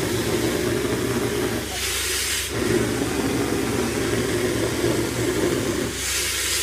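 Gunite rig running: an engine's steady low drone under a hiss of compressed air driving concrete through the hose. Twice, about two seconds in and again near the end, the drone dips and a sharper rush of air rises for about half a second.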